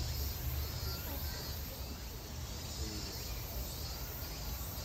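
Outdoor ambience: insects chirring steadily over a constant low rumble, with a few faint chirps.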